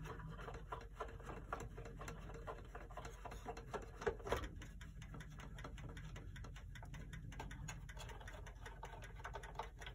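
Small clicks and scrapes of a screwdriver working the screws that hold a c1910 pendulum clock movement, with a louder knock about four seconds in. The movement shifts down and starts ticking as the clock begins running.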